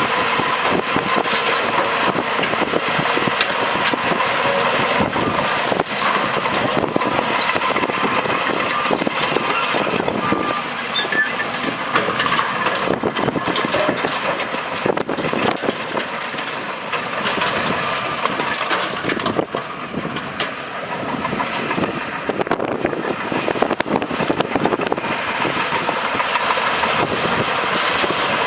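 Heavy earthmoving machinery running: a diesel engine's steady noise mixed with frequent short rattles and clanks.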